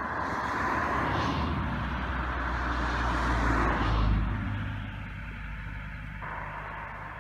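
A car passing on a road, a steady rush of tyre and engine noise that builds to its loudest about four seconds in, then fades away.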